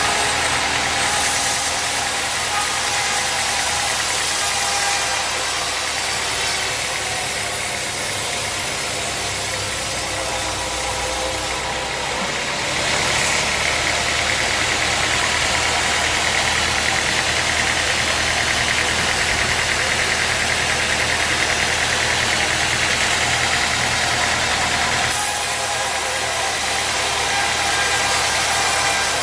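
Sawmill machinery running with a steady engine-like drone. About halfway through it grows a little louder, with a higher whine added for about twelve seconds.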